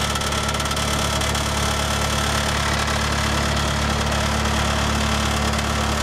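Case 1825B skid-steer loader's engine running steadily at a constant speed as the hydraulics raise the lift arms.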